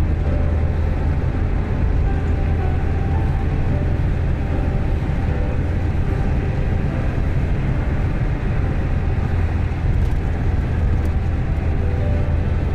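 A car travelling at highway speed: a steady, deep rumble of tyres and engine with no change.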